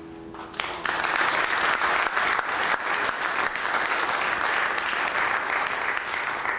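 A piano chord dying away, then audience applause breaking out about half a second in, a dense, steady clapping that holds until the end.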